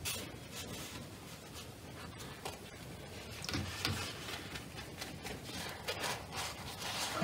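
Quiet scratchy rustling and scattered light taps of a watercolour brush working on paper and being blotted in a crumpled paper tissue.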